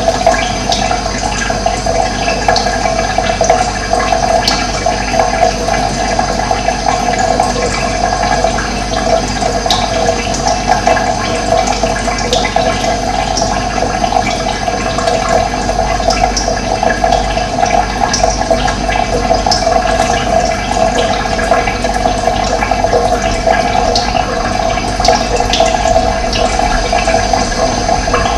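Running water, rushing steadily and loudly without a break.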